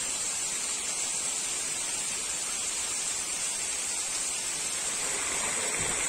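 Steady rush of water from a small seasonal mountain waterfall cascading over rock.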